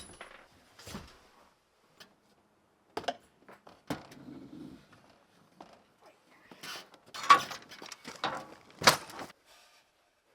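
Irregular knocks, clunks and rattles of things being handled in a small room, loudest in a cluster about seven to nine seconds in.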